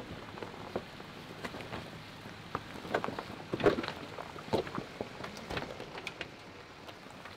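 Jeep Wrangler Rubicon's tyres crawling slowly over loose rocks and dry leaves: irregular crackling, pops and knocks as stones shift and crunch under the tread, with a louder cluster of knocks about halfway through.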